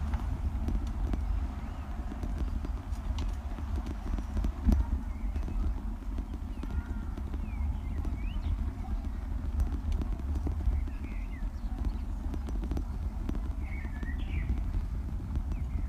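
Bicycle rolling over a brick cobblestone street: a dense, irregular clatter of knocks and rattles from the wheels jolting over the pavers, over a steady low rumble.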